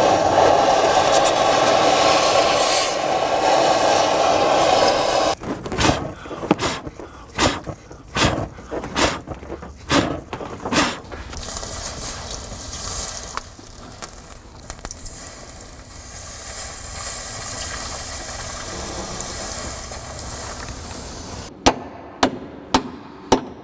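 Cutting torch running with a steady hiss as it burns through a seized shock absorber nut at its upper mount. It stops after about five seconds, and a string of sharp knocks follows. Water poured onto the hot metal then sizzles for several seconds, and a quick run of sharp taps comes near the end.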